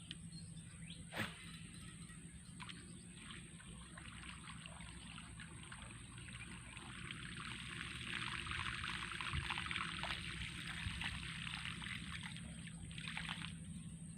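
Water trickling and splashing, growing louder for a few seconds in the middle, with a few sharp clicks.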